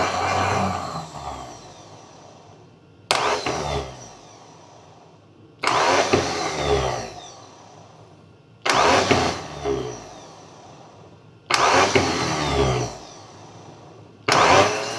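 Rebuilt vintage Bosch Sno-Start electric starter motor powered up in short bursts. It kicks in sharply five times, about every three seconds, and each time spins down over a second or so as the power is cut. The rebuilt starter is working, though weakly.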